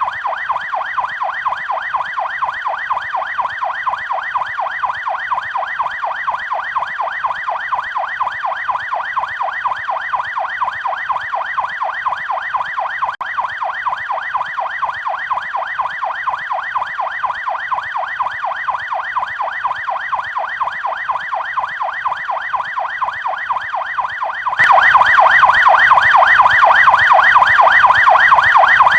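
Police siren on the fast yelp setting: a continuous tone sweeping rapidly up and down several times a second. About 25 seconds in it suddenly becomes louder.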